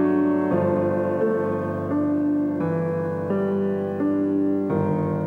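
Slow instrumental piano music, a new chord sounding about every two-thirds of a second.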